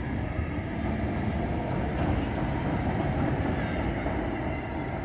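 A New York City Subway 4 train of R142/R142A cars running on the rails of the Jerome Avenue line, a steady rumble of wheels on track that grows slightly louder about a second in.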